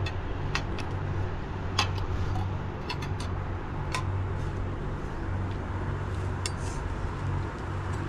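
Steady outdoor background noise: a low rumble that swells and fades, with a hiss over it, and a few light clicks and taps from plates and cups.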